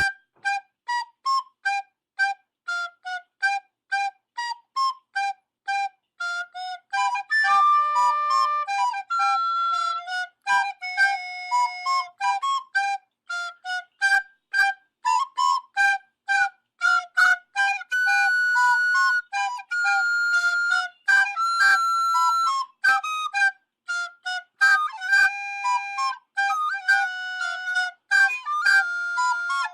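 Background music: a flute-like melody of short, detached notes, with a few longer held notes in places.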